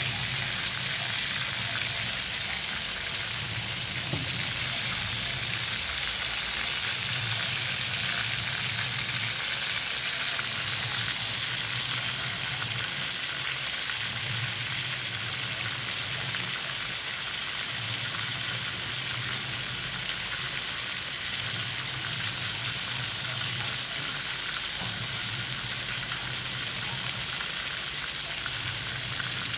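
Raw chicken pieces starting to fry in shallow oil in a pan: a steady sizzle, with a low hum coming and going underneath.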